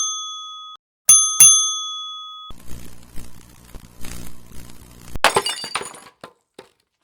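A bell's single ding rings out, then a double ding (two quick strikes) rings for about a second. This is followed by a steady electric lamp hum with scattered crackles for a few seconds, cut off about five seconds in by glass shattering.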